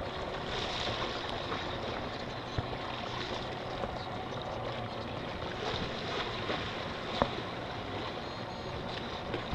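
Steady wind on the microphone and water noise around a small boat, with a few short sharp knocks.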